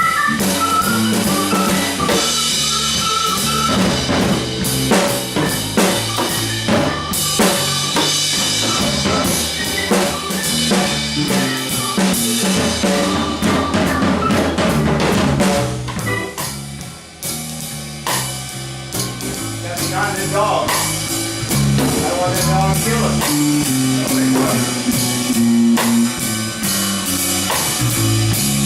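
Live instrumental band jam led by a drum kit with busy rimshots and bass drum, over moving bass-guitar notes and keyboards. The band drops back briefly past the middle, then builds up again.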